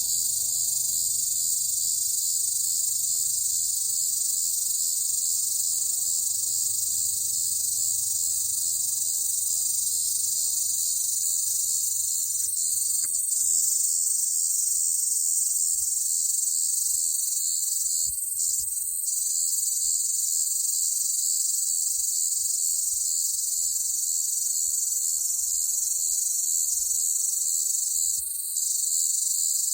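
Cicadas buzzing: a loud, steady, high-pitched drone that dips briefly a few times, about two-thirds of the way in and again near the end.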